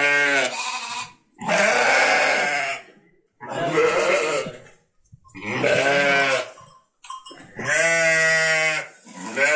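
A sheep bleating loudly and repeatedly: five long, drawn-out bleats, each about a second and a half, coming about every two seconds.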